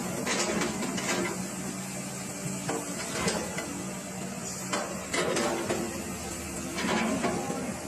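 Excavator diesel engine running steadily during its warm-up before work, with irregular metallic clanks and knocks about every second or two.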